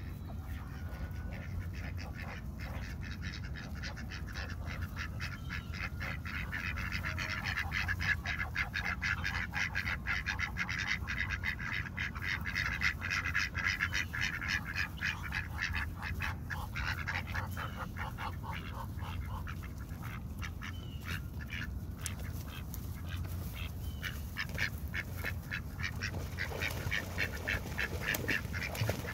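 A flock of domestic ducks quacking in rapid, chattering runs, busiest through the first half or so and thinner afterwards, over a steady low rumble.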